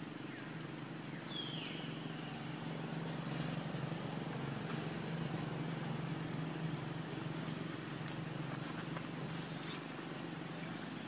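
Outdoor background with a steady low hum under a faint hiss, a short high squeak falling in pitch about a second in, and a single sharp click near the end.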